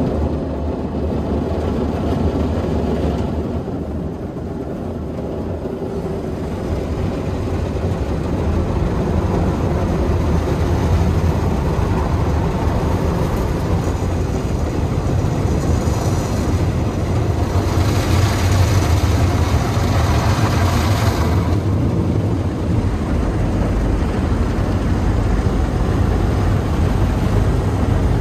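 Express tunnel car wash machinery running around the car on the conveyor: a steady low rumble and rush of wash noise, with a louder hissing stretch lasting a few seconds about two-thirds of the way in.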